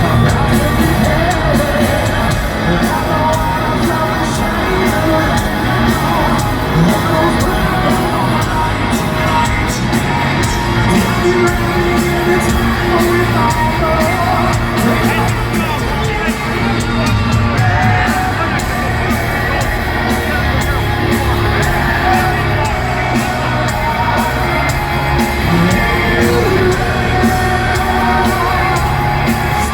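Live heavy metal band playing loudly in a stadium, with distorted guitars, drums and singing, and the crowd yelling and whooping along.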